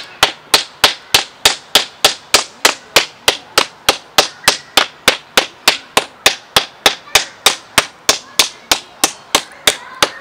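Quartz stone axe chopping into a wooden branch laid on a stump: quick, steady blows, about three a second, the stone head striking wood. The chopping stops near the end.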